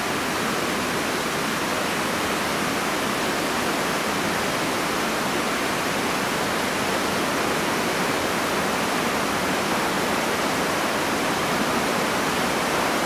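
Steady, even rushing of river water pouring over a weir.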